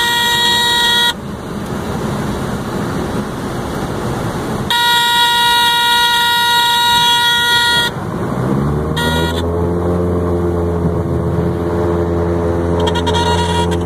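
Cockpit warning horn of a Lake Buccaneer amphibian sounding a steady tone in spells: about a second at the start, three seconds in the middle, a brief blip, and again near the end. It sounds over continuous engine and water noise. About eight seconds in, the pusher four-cylinder Lycoming engine rises in pitch as power comes up, then holds steady.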